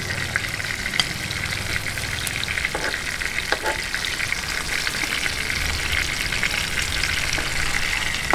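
Milkfish (bangus) steaks frying in hot oil in a pan: a steady sizzle and crackle, with a few light clicks.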